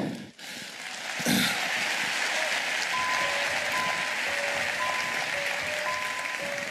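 Studio audience applauding, with a slow melody of single held notes coming in over the clapping about two and a half seconds in.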